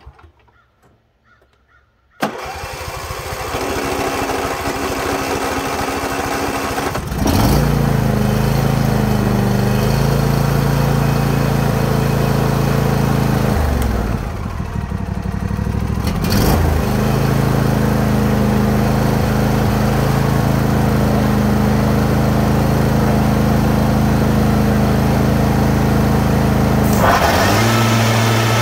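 John Deere D155 lawn tractor's V-twin engine cranked on the electric starter for about five seconds on full choke, then catching and running. Engine speed drops about halfway through and picks back up, then shifts again near the end as the throttle lever is moved.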